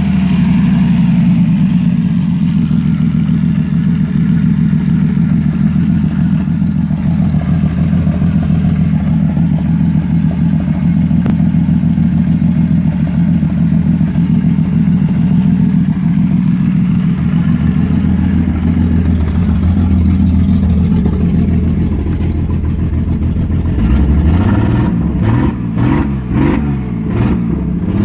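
1989 EA Ford Falcon's port-injected inline six running roughly with a misfire, which the owner suspects comes from the coil pack. The running is steady for most of the time, then near the end the engine speed shifts and the sound wavers unevenly.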